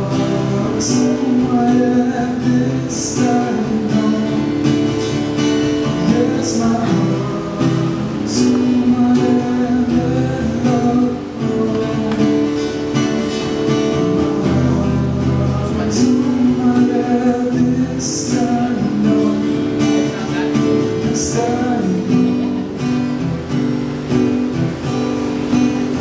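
Acoustic guitar strummed steadily while a man sings along, a live solo acoustic song.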